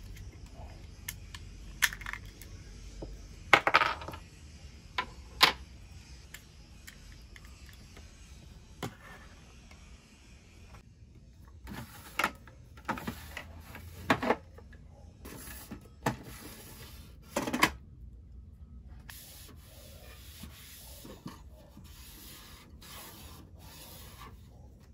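Small plastic desk items being handled: irregular sharp clicks and knocks as things are picked up and set down and a small plastic organizer drawer is pulled open, with a cluster of knocks past the middle.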